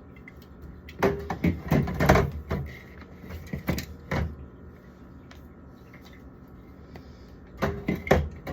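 Drink bottles and cans knocking and clattering against each other and the shelf as they are packed into a fridge, in two bursts of handling with a pause between them.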